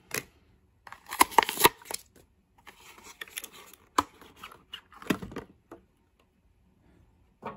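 Stiff clear plastic blister packaging and a cardboard box being handled and opened, crackling and snapping. The loudest crackles come about a second in, with a sharp click around four seconds and another rustle a second later.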